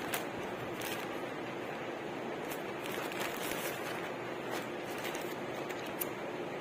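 Plastic courier mailer bag crinkling and rustling as the folded cloth inside is pulled out of it: a handful of short crackles scattered through, over a steady background hiss.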